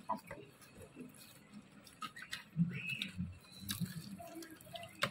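Faint chewing with small irregular clicks and soft knocks of someone eating close to the microphone.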